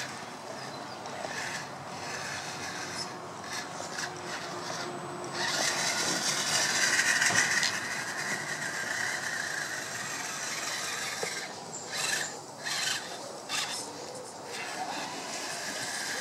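Radio-controlled scale crawlers driving over dirt: the electric motors and gearboxes whine while the tyres scrape and crunch on sandy ground, loudest about six to eight seconds in.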